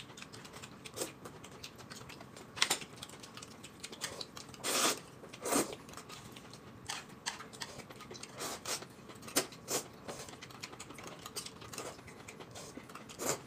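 Eating sounds from a plate of mixed noodles eaten with chopsticks: irregular wet slurps, chewing smacks and small clicks, with two longer slurps about five seconds in.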